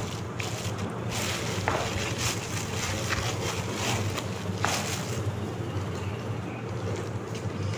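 Thin plastic bag crinkling and rustling in short bursts as it is handled, with a steady low hum underneath.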